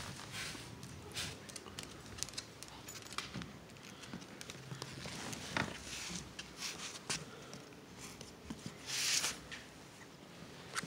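Small dogs scuffling on a tile floor: scattered sharp clicks of claws and paws on the tiles, with a short breathy rush of noise near the end.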